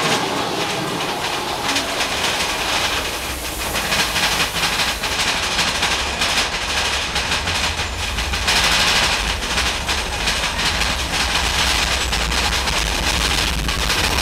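Big Thunder Mountain mine-train roller coaster heard from a seat on board, its cars rattling and rumbling along the track. The rumble grows louder a little past halfway through.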